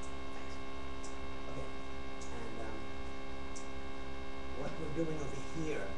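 Steady electrical mains hum picked up by a webcam's built-in microphone, with a faint voice murmuring briefly near the end.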